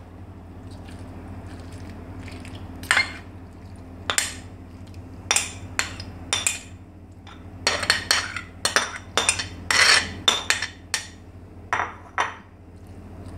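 Metal spoon scraping and clinking against a ceramic plate and a glass bowl as boiled macaroni is pushed off the plate. The clinks come singly at first and crowd together from about eight to eleven seconds in, over a steady low hum.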